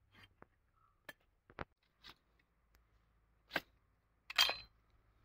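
A large chopping knife cutting raw turkey on a stone slab: a series of short, sharp knocks and cuts, the loudest about four and a half seconds in.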